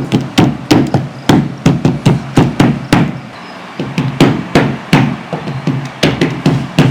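A man clicking his tongue in a quick run of sharp clicks, about three a second, a playful noise to amuse a baby, with a short break about three seconds in.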